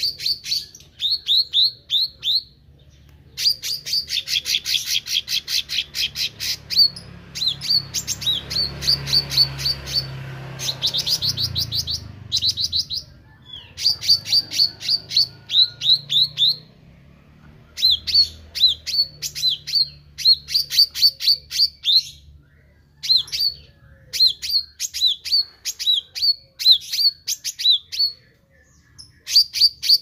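Caged meranti songbird singing continuously: quick runs of repeated high chirps in bouts of one to three seconds, with short pauses between and a denser trill a few seconds in.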